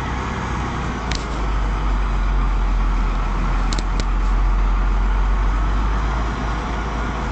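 Scania truck's diesel engine running steadily, with a few sharp clicks about a second in and twice close together around four seconds in.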